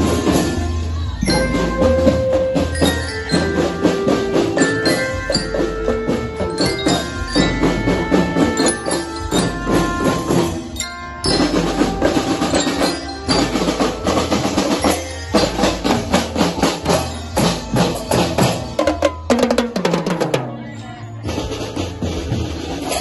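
Children's marching drum band playing: bass drums and other drums keep a steady beat under a melody on glockenspiels, with many sharp percussion strikes.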